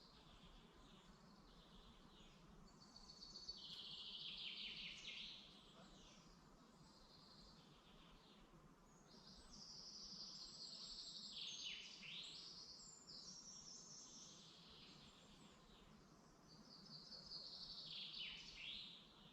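Faint songbird song in a forest: three bouts of quick, high, trilling and falling phrases over a quiet steady background.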